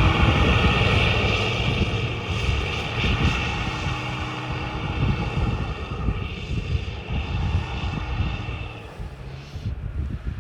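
Mitsubishi L200 pickup engine running as the truck drives off through snow, with a steady drone and rumbling underneath that eases somewhat near the end.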